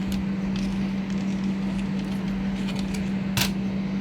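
A steady low hum, with a single sharp click about three and a half seconds in and a few faint ticks.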